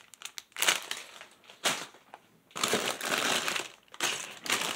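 Plastic bags of Lego pieces crinkling and rustling as they are handled and pulled out of the box, in several short bursts with quiet gaps between.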